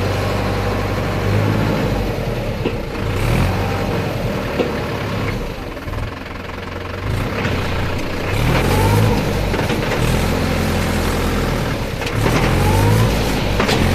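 Tractor diesel engine running under load and revving hard twice, its pitch rising each time, as the mud-laden tractor strains in soft ground where it has sunk a little.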